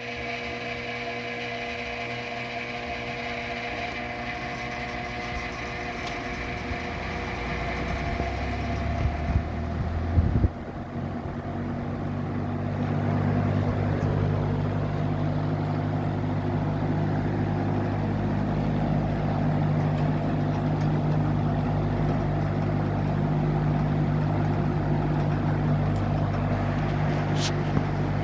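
Lau Ultra 20 box fan starting up, its once-seized motor now turning freely. A whirring builds over the first ten seconds, with a few knocks about ten seconds in. Then the motor hum and the rush of air from the blades settle into a steady, louder run.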